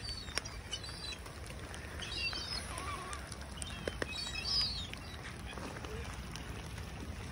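Small birds chirping in a few short bursts, over the steady noise of falling rain.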